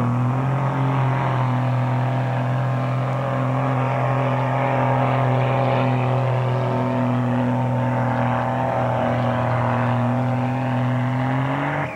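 Diesel pickup truck engine at full throttle, pulling a weighted truck-pulling sled. It holds a steady high rev the whole way, climbs slightly in pitch, then cuts off sharply near the end as the pull stops.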